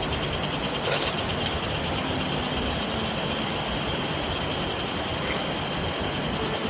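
Frogs calling in a rapid, even, rattling chorus over the steady rushing of a mountain stream.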